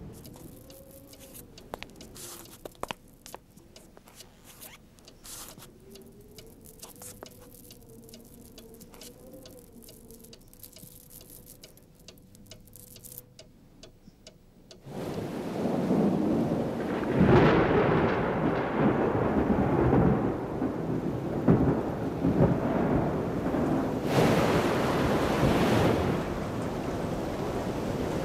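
Thunderstorm: after a quiet stretch with scattered faint clicks, thunder breaks suddenly about halfway through into a long rumbling that swells twice over the hiss of heavy rain.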